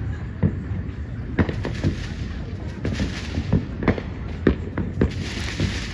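Footsteps crunching on dry leaves and mulch, a sharp crunch about every half second, with rustling between steps.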